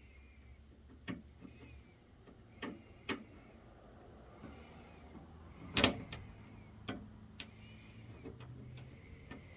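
Scattered light clicks and knocks of screws and a screwdriver against the plastic housing of an electric heater as its filter cover is being screwed on, with one louder knock about six seconds in.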